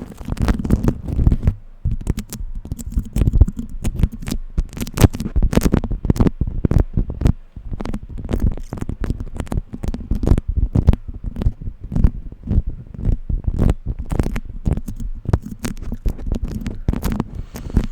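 Beeswax food wrap, warmed and sticky, being crinkled, pressed and pulled apart close to the microphone: dense, irregular crackling and popping over low handling noise.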